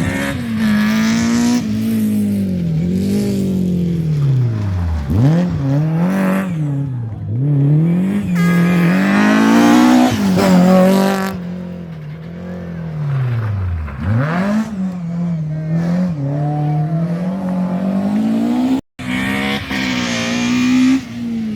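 Rally car engine revving hard along a stage. The revs climb and drop sharply again and again through gear changes and lifts, loudest about ten seconds in. A split-second dropout comes near the end.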